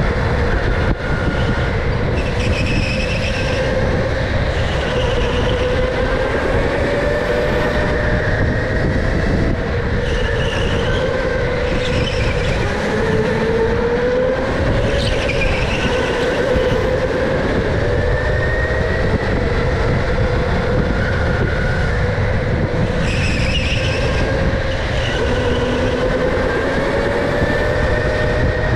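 Electric go-kart's motor whining under way, its pitch rising and falling with speed through the corners, over a steady low rumble.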